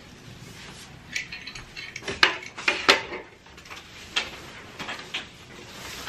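Clothes hangers clicking and clacking against a wire closet rod as a coat and clothes are hung up, several sharp knocks over a soft rustle of fabric.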